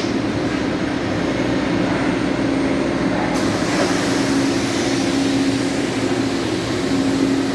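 A motor running steadily with a constant low hum, over a dense noisy wash.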